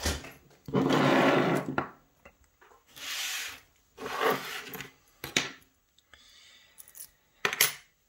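Handling noises on a wooden desk: a small metal lock cylinder and tools being picked up, slid and set down. There are several rubbing, sliding sounds, the longest about a second in, and sharp clicks about five and a half and seven and a half seconds in.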